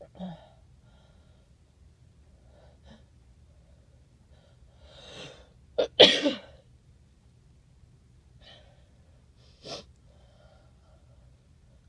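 A person sneezing, set off by chhinkni sneezing powder. A drawn-in breath builds to one loud sneeze about six seconds in, with shorter, quieter breathy bursts near the start and near the end.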